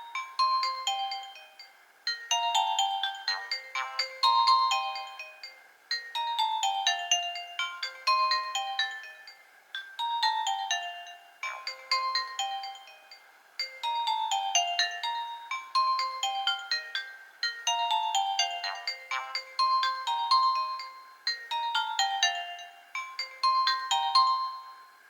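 Nokia 1800 mobile phone ringtone playing: a short bell-like melody of quick notes, many in descending runs, repeating on a loop about every four seconds.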